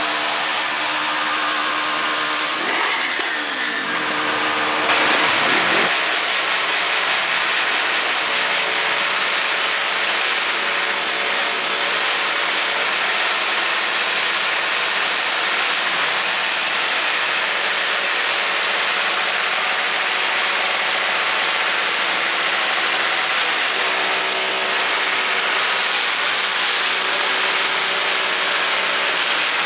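Several motorcycle engines running and being revved, the pitch rising and falling in the first few seconds, then settling into a dense, steady din of engines.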